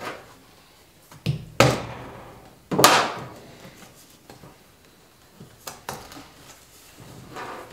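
Several hollow knocks and thuds of a plastic fluid jug being handled and set against a truck's sheet-metal fender, the loudest two in quick succession about two seconds in, followed by a few lighter clicks.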